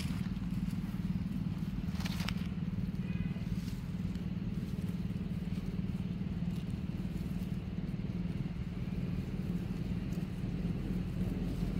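A steady low hum that runs without change, with a short click about two seconds in.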